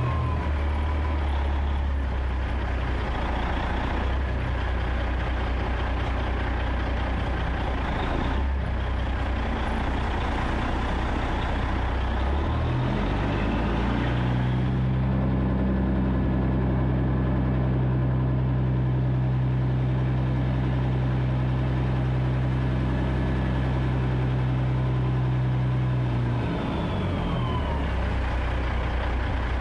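Peterbilt semi truck's diesel engine heard close at the exhaust stack, running low and steady as the truck creeps along. About halfway through, the revs step up and hold steady at a higher pitch for roughly thirteen seconds, then drop back down near the end.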